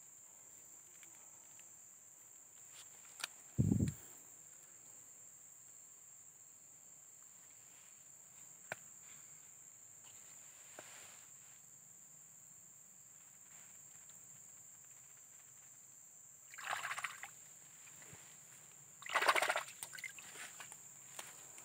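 A hand sloshing in shallow muddy water twice near the end, the second time louder, over a steady high-pitched insect drone. A single dull thump comes about four seconds in.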